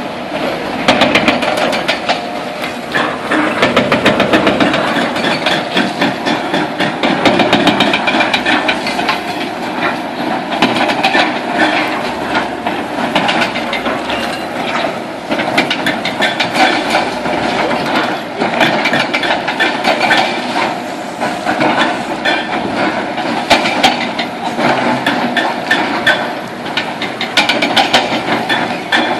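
Heavy demolition excavator breaking up a concrete bridge: engine running under a continuous clatter of irregular knocks and crunches of concrete and steel.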